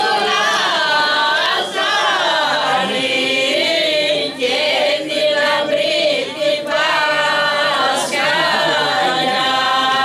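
Mixed choir of men and women singing unaccompanied, ending on a long held chord near the end.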